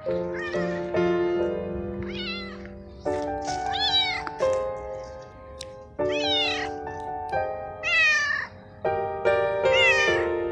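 Young male tabby cat meowing about six times, each meow a drawn-out call that bends in pitch, over background music of sustained notes.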